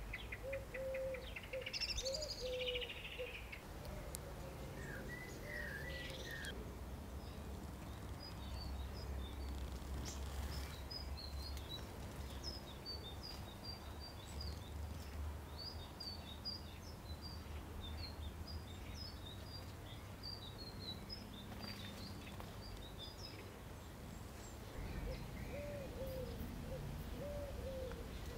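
Garden birdsong in the early morning. A dove repeats low cooing notes at the start and again near the end, and a small songbird gives a long run of quick, high chirps in between, all over a steady low background rumble.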